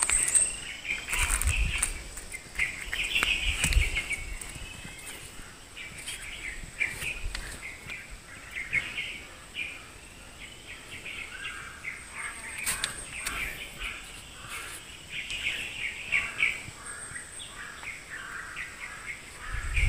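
Birds chirping and calling over and over, with a faint steady high-pitched tone underneath and scattered knocks and low thumps.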